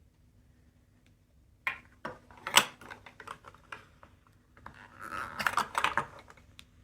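Small plastic toys being handled, clicking and rattling in an irregular run that starts a little under two seconds in, with the sharpest click soon after and a denser patch of rattling near the end.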